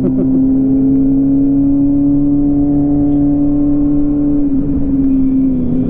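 Vehicle engine running at a steady speed, its drone rising slightly in pitch and then dropping about four and a half seconds in as it eases off.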